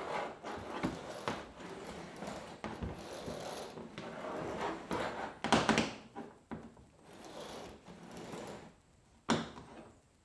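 Handling noise of hands working the kayak gear: irregular rustling and scraping with several knocks and clicks. The loudest clatter comes about five and a half seconds in, and there is a sharp click near the end.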